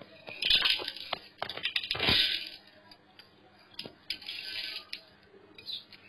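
Washed mixed lentils tipped from a bowl into a pressure cooker, the grains rattling and pattering into the metal pot. The sound comes in bursts over the first couple of seconds and again about four seconds in.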